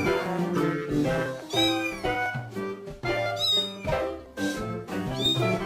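A cat meowing three times, about two seconds apart, each a rising-then-falling high call, over background music.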